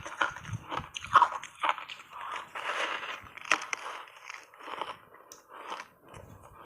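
A person biting and chewing hard block ice coated in milk powder: a quick, irregular run of crunches, louder at first and growing softer after about four seconds as the ice is chewed down.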